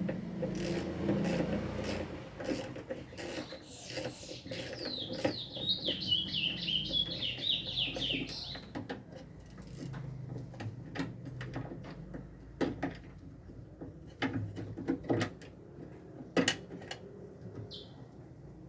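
Clicks, knocks and rattles of tools, screws and plastic parts being handled while a washing machine is taken apart. About four seconds in comes a run of quick, high, squeaky chirps lasting about four seconds.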